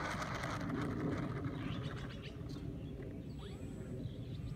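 EPP foam RC Cessna's 2216 brushless motor and 9x6 propeller running at low throttle as the plane rolls across artificial turf, its hum fading after about a second. A low rumble runs underneath, with a few faint bird chirps.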